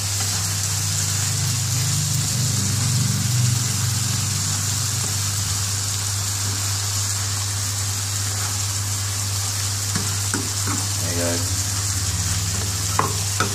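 Chicken pieces and shallots frying in oil in a pan, sizzling steadily over a low steady hum, with a couple of clicks near the end.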